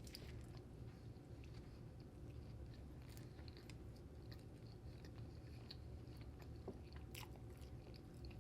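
Quiet close-up chewing and biting of food, with faint scattered mouth clicks, two of them sharper about three and seven seconds in, over a low steady hum.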